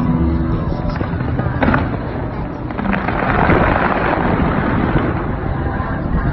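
Fireworks going off: a continuous low rumble of bursts, a sharp crack near the start, and a dense crackle that swells from about three to five seconds in.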